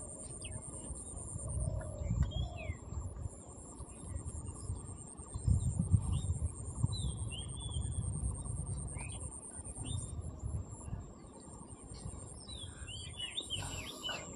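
Birds chirping now and then, with a cluster of calls near the end. Beneath them is an uneven low rumbling noise, loudest about six seconds in, and a steady high-pitched buzz runs throughout.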